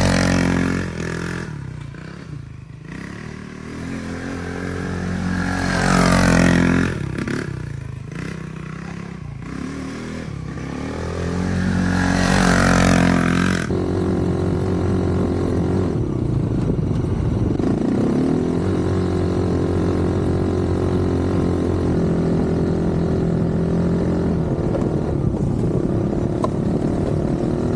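Polaris RZR 170's small single-cylinder four-stroke engine revving up and down twice as the machine drives across grass, then running at a steadier speed from about 14 seconds in.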